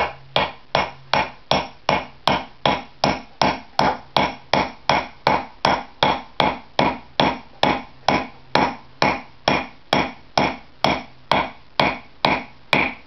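Hammer striking a step wedge into the top of an axe handle in the head's eye, a steady run of blows about three a second. Driving the wedge in spreads the handle's wood to tighten the head on the handle.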